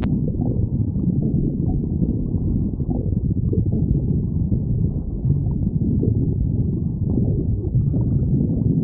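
Stomach growling: a continuous low growl full of small irregular gurgles.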